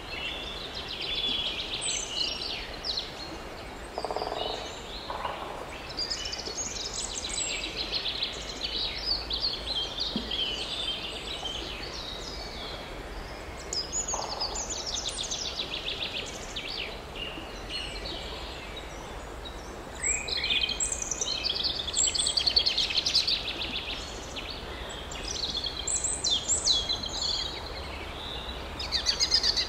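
Forest birdsong: several songbirds singing and chirping in overlapping phrases of quick chirps and trills, coming and going throughout.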